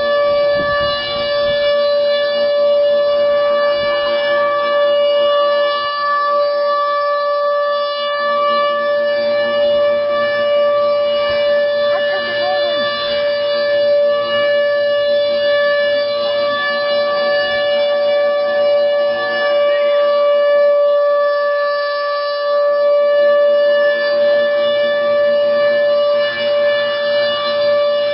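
Federal Signal Thunderbolt 1000 outdoor warning siren sounding its steady alert tone: one loud, unwavering note held at full pitch with strong overtones.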